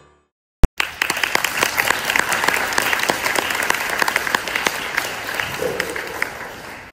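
A single sharp click, then a large audience of school students clapping, the applause thinning slightly toward the end.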